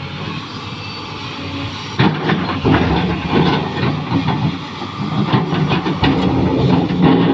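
XCMG 380 excavator's diesel engine running, with hydraulic hiss and clanking as the machine works. It gets louder about two seconds in, with irregular knocks and clatter.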